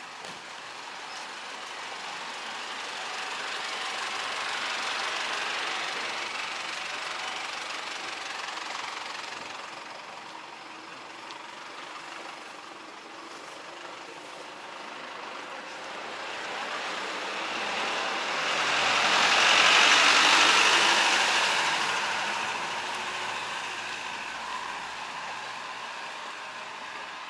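Road traffic passing: two vehicles go by one after the other, each a rising and falling rush of tyre and engine noise. The second, about twenty seconds in, is the louder.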